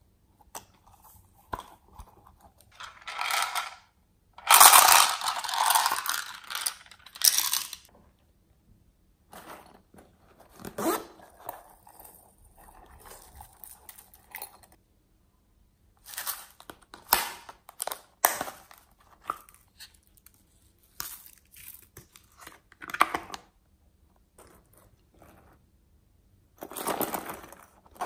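Hands handling rubber toy coin purses and squishies over a tray of slime, with their glitter and bead contents tipped out: intermittent rustling, scraping and crackling in short bursts, with brief silent gaps. The longest, loudest stretch comes a few seconds in.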